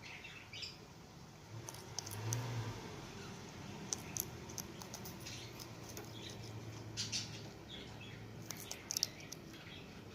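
Parrot nibbling and crunching green beans with its beak: irregular small clicks and crackles.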